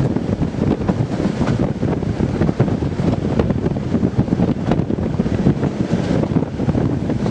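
Class 207 'Thumper' diesel-electric multiple unit running along the line: a steady, loud mix of its English Electric diesel engine and wheels on rail, with wind buffeting the microphone.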